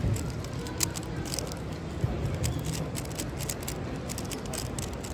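Background noise of a crowded hall: a steady low rumble with faint distant voices and scattered sharp clicks.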